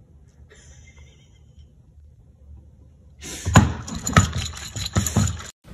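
Faint room tone, then about three seconds in a puppy lunges forward right at the microphone: a loud crackling scuffle with several sharp knocks, cut off abruptly near the end.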